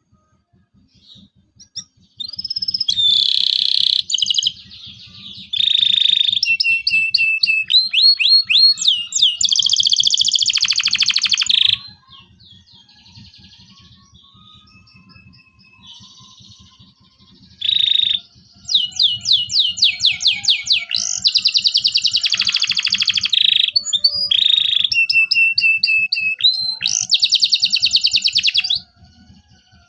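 Canary singing in two long spells of fast trills and rapid chirp runs: the first starts about two seconds in and stops near the middle, and the second starts a little past halfway and stops just before the end.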